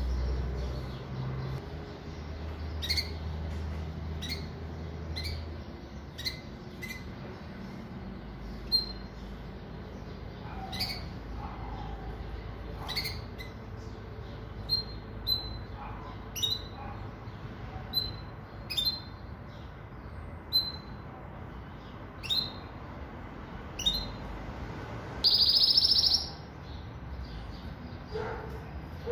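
Pintagol, a hybrid of a European goldfinch and a female canary, giving short, scattered chirps and call notes about once a second, with one longer, louder call near the end.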